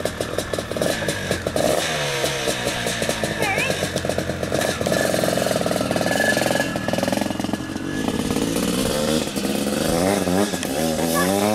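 700cc single-cylinder two-stroke dirt bike engine running, blipped up and down in repeated rising and falling revs. Near the end it revs harder in quick sweeps as the bike pulls away.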